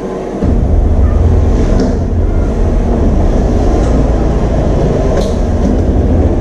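A loud, steady low rumble starts suddenly about half a second in and keeps on, with a few faint light clicks as the aluminium oven is handled.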